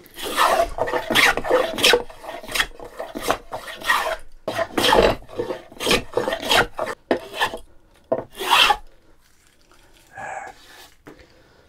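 Steel-soled hand plane shaving a wooden board in a run of about a dozen short rasping strokes, roughly one to two a second, that stop about three-quarters of the way through.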